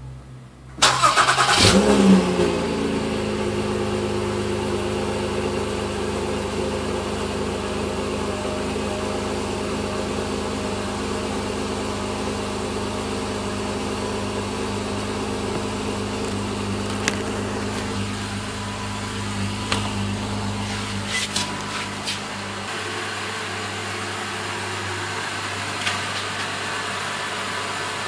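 2014 Honda Odyssey's 3.5-litre V6 started at the exhaust: it catches about a second in with a short rev flare, then settles into a steady idle. A few light clicks come later on.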